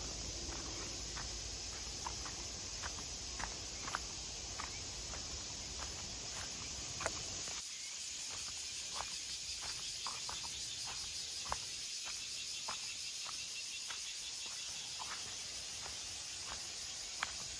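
Footsteps on a dry, leaf-littered dirt trail, a short tick every half-second or so, over steady insect hiss from the surrounding forest. A low rumble under the first half cuts off suddenly about eight seconds in.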